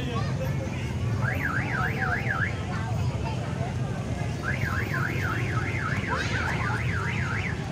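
An electronic alarm warbling rapidly up and down, about three sweeps a second, heard in two bursts: a short one about a second in, then a longer one of about three seconds from the middle. It sounds over a steady low rumble of crowd and traffic.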